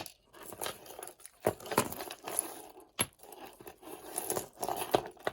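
Loose jewelry clinking and rattling as pieces are handled and pulled apart, with scattered sharp clicks and light rustling.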